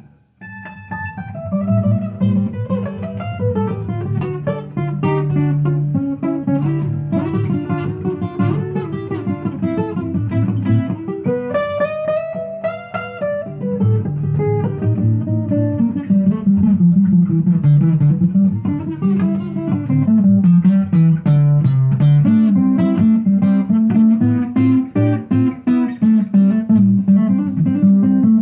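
Acoustic guitar played solo, picked rather than strummed: a wandering melody of single notes over steady bass notes.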